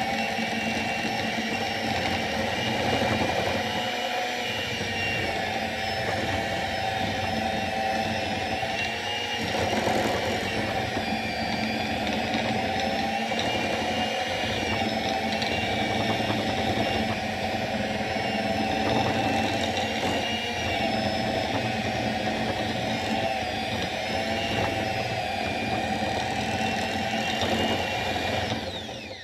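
Electric hand mixer running steadily, its beaters creaming butter and sugar in a glass bowl; the motor's whine wavers slightly in pitch and cuts off suddenly right at the end as the mixer is switched off.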